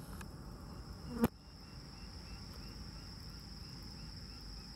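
Insects chirring in one steady high-pitched tone over a faint low rumble, with one sharp click about a second in.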